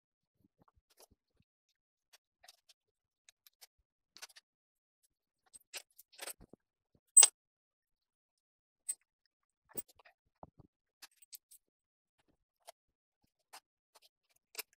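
Scattered light metal clinks and taps as a cast-iron dividing head is set in place and clamped on a milling machine table, with one sharp, much louder clink about seven seconds in.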